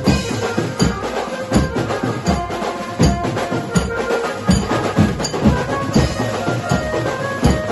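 Live procession band playing: drums and a cymbal keep a beat under an amplified melody, with the hum of a large crowd beneath.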